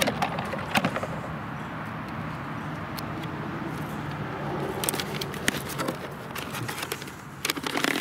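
Handling noise from a pen and a spiral-bound paper sign-in sheet at a wooden sign-in box: scattered sharp clicks and taps, with a cluster of clicks and paper rustle near the end as the sheet is pulled out. Under it runs a steady low background noise.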